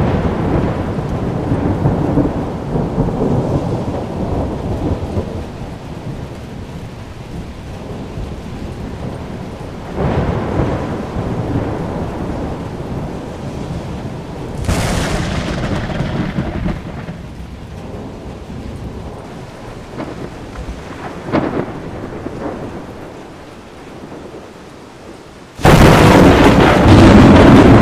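Thunder from a nearby thunderstorm rolling and rumbling in several waves, over a steady hiss of rain. Near the end a sudden, much louder blast of thunder breaks in and stays loud, as lightning strikes close by.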